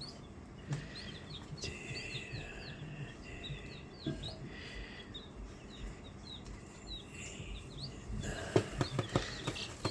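A brood of baby chicks peeping: many short, high cheeps overlapping and repeating, with some scuffling near the end.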